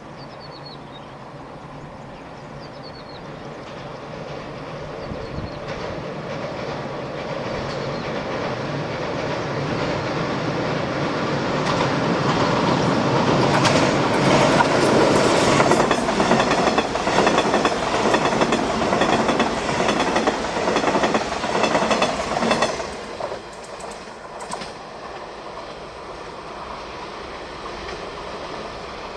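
Electric passenger train approaching and passing close by: a rumble that builds steadily, with wheels clacking in a regular rhythm over the rail joints at its loudest. It drops off suddenly about 23 seconds in as the last car goes by, leaving a fainter fading rumble.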